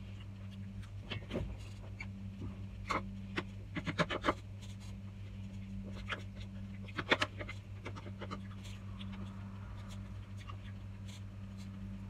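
Close-up eating sounds: mouth clicks and smacks of chewing, and a metal spoon scraping and tapping in a plastic bowl, as scattered sharp clicks with quick flurries about four and seven seconds in. A steady low hum runs underneath.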